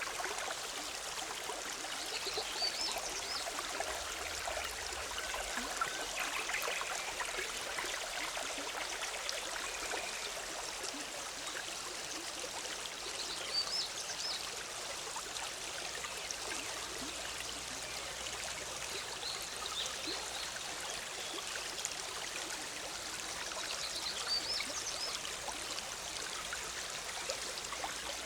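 Forest stream bubbling and splashing steadily over rocks, with a few short, high bird chirps over the water.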